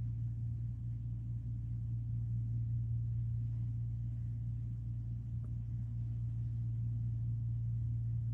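Steady low electrical hum, with one faint click about five and a half seconds in.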